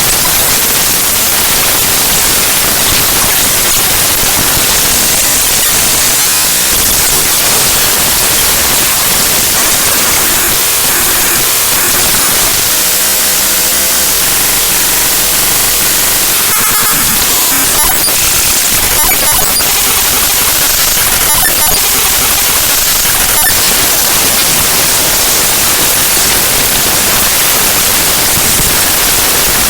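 Raw bytes of the avcodec.dll program library played back as audio: loud, dense static-like noise, with a few brief clicks in the second half.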